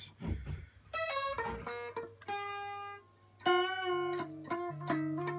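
Solid-body 12-string guitar playing a few plucked single notes, with one held note and a short pause. It is out of tune, and hard fretting on its very light strings pulls notes sharp. The note struck about three and a half seconds in wavers in pitch.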